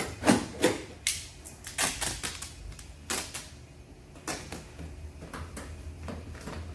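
Duct tape being worked onto a car body panel: a string of irregular short rips and taps as tape is pulled, torn and pressed down, busiest in the first couple of seconds.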